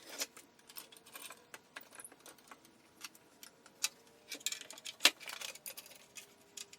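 Irregular clicks and light knocks of clamps being handled and tightened on a wooden recliner base, the loudest knock about five seconds in.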